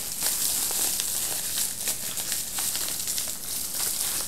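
Bubble-wrap packaging crinkling and crackling as it is handled and pulled open, a steady run of small crackles.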